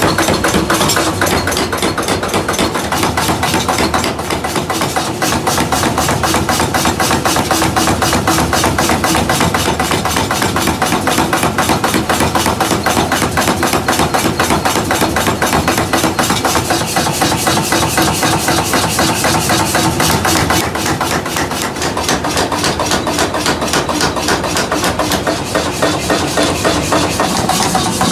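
Rapid, steady hammering on hot steel, several blows a second without a break, over a faint steady machine hum.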